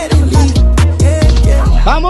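Loud background music: a beat of deep bass notes that slide down in pitch on each hit, with sharp ticks over it, and a tone sweeping up and back down near the end.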